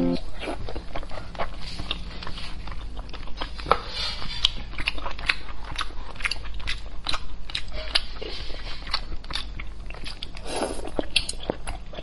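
Close-miked chewing of soft braised pork belly: mouth smacks and many short sticky clicks, several a second, throughout.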